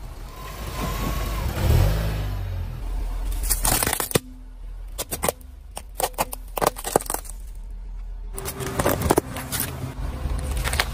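A car's engine running as it rolls over objects, with a loud snap and then a run of sharp cracks and crunches in the middle as things are crushed under the tyres.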